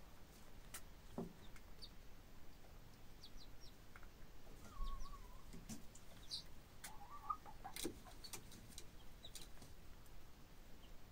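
Hen and half-grown chicks on a roost perch, calling faintly: a scatter of short high peeps and two soft wavering calls near the middle, among small scratchy clicks.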